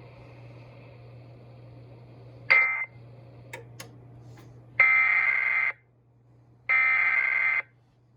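Emergency Alert System end-of-message data tones: two buzzy digital bursts of about a second each, roughly two seconds apart, starting about five seconds in. Before them, faint radio hum and hiss, broken by a short blip and two clicks about two and a half to four seconds in.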